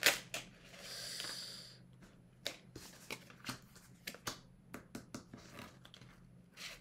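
Oracle cards being drawn off a deck and laid down on a table mat: a string of short card snaps and taps, with a brief swish about a second in.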